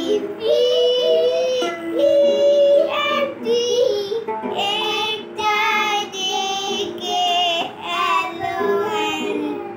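A child singing a song over music.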